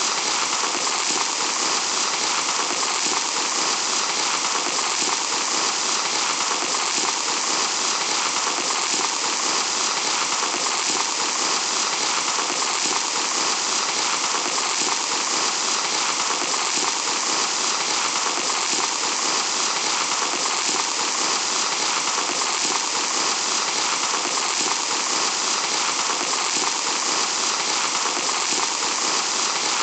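Fine sand pouring in a steady, even hiss that holds without a break.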